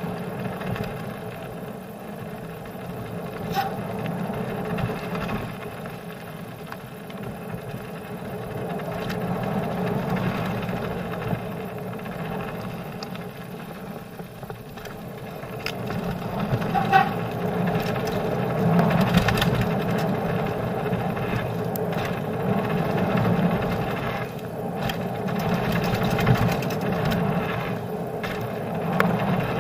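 Mountain bike descending a dirt and gravel trail at speed: steady tyre rumble and rattling of the bike, with scattered sharp knocks over bumps, louder over the second half.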